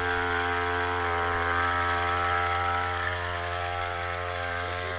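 Small engine of a motorized backpack sprayer running steadily, blowing spray mist.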